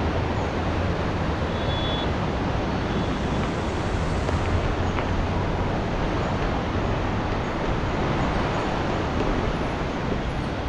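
Steady rushing noise with a low rumble, from riding a mountain bike down a trail: wind buffeting the camera microphone and the tyres rolling over the ground.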